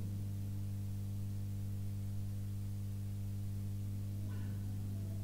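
Steady low electrical mains hum with a stack of higher overtones, unchanging throughout.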